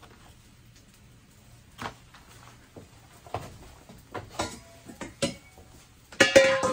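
Scattered light knocks and taps, then near the end a loud clatter of stainless steel mixing bowls knocking together, ringing with a metallic tone.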